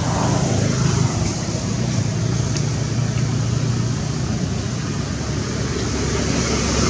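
Steady low rumble with an even hiss above it, at a constant level throughout.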